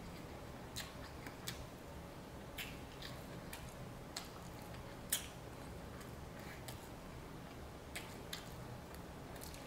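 Close-miked chewing of sticky glazed pork ribs: irregular wet mouth clicks and smacks, the loudest about five seconds in.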